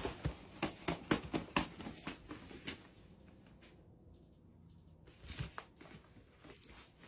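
Rustling and crinkling of a suitcase's fabric lining as a hairless cat crawls under it. A quick run of scratchy clicks comes in the first three seconds, and a few more follow about five seconds in.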